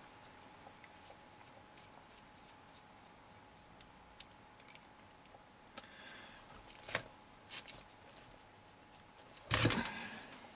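Small clicks and taps of pliers and fingers on a plastic RC-car oil-filled shock absorber as its top cap is worked loose, over a faint steady hum, with a short louder scuffing noise near the end.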